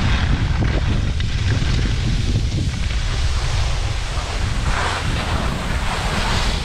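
Wind rushing over a skier's camera microphone during a downhill run, a steady low buffeting, with the scrape of skis on packed snow swelling twice near the end.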